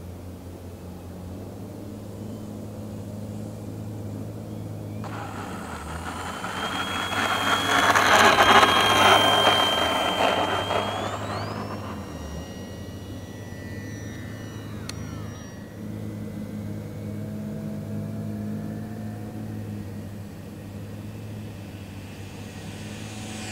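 Electric motor and propeller of a foam RC P-51D Mustang model on a low pass: a high whine that swells, loudest about eight to nine seconds in, steps up in pitch near eleven seconds, then fades as the plane moves away. A steady low hum runs underneath.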